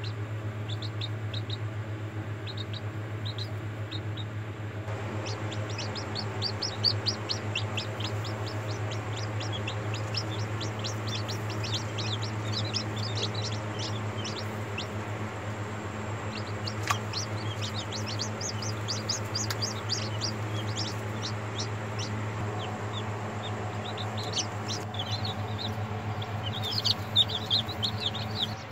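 Newly hatched chicks peeping: short, high, falling cheeps, a few at first, then many in quick succession from about five seconds in. A steady low hum runs underneath.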